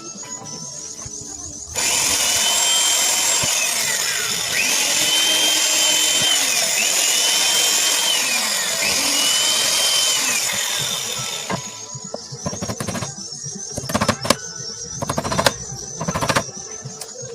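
Electric drill running for about ten seconds, its whine rising, holding and falling again about four times as the trigger is squeezed and eased, then stopping. A few sharp knocks of wood follow near the end.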